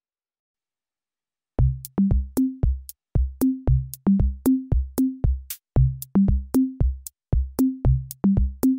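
Silence, then about a second and a half in, electronic background music starts: a drum-machine beat of about three hits a second over a bass line stepping between a few low notes.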